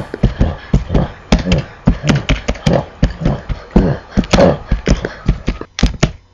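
A fast, uneven run of sharp percussive hits and thumps, several a second, with a short gap near the end before two more hits.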